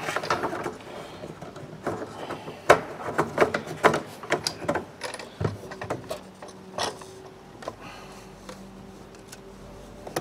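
Plastic clicks, knocks and rattles as a fuel pump and level-sender assembly is handled and lowered into the fuel tank opening, busiest in the first half. Later a faint steady hum underneath.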